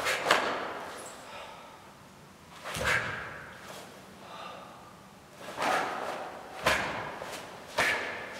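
Sharp snaps and swishes of a taekwondo uniform as each block and strike of the form is thrown, about six in all, spaced a second or more apart, with short forceful breaths and an occasional thud of bare feet on the floor.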